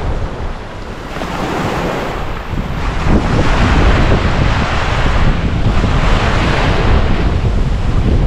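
Ocean waves breaking and washing up a beach, with wind buffeting the microphone. The wash dips slightly about a second in, then swells and stays loud from about three seconds in.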